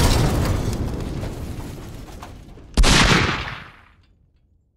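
Edited-in gunfire and explosion sound effects. The tail of a loud blast dies away, then a second sharp blast about three seconds in fades within a second.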